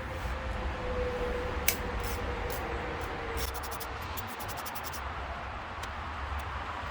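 Socket ratchet clicking in quick runs, about ten clicks a second, from about three and a half to five seconds in, as an 8 mm bolt on a Husqvarna 324L trimmer's carburetor is turned. A single click comes earlier, over a low steady rumble.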